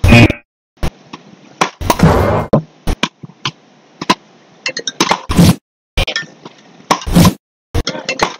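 Wooden beach rackets striking a small rubber ball in a fast rally: sharp cracks, one about every half second to a second, with a few longer, louder noisy stretches between them.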